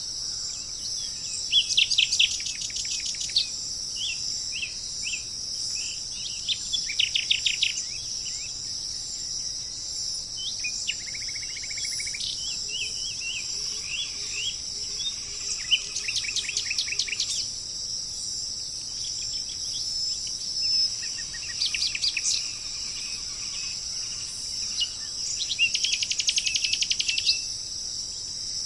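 Songbirds singing short trills and chirps every few seconds, over a steady high-pitched chorus of insects.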